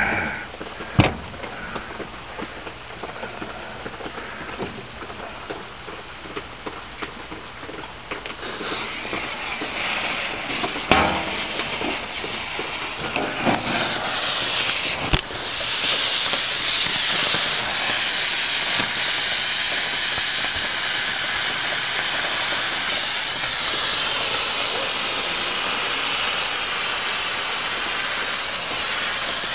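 Green firework fountain burning. A hiss builds about eight seconds in, then becomes a loud, steady hiss as it sprays sparks and pours out green smoke, with a few sharp cracks along the way.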